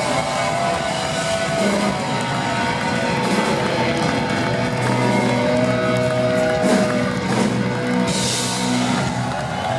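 Live heavy rock band playing loudly on stage: distorted electric guitars, bass and drums.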